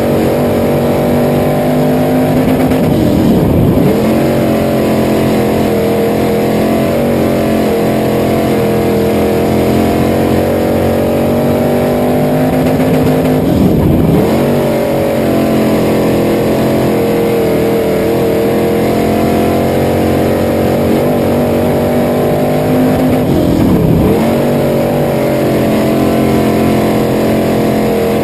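Dirt-track race car engine heard from inside the cockpit, running hard at racing speed. Three times, about ten seconds apart, the revs drop sharply as the throttle lifts for the turns, then climb back as it powers down the straight.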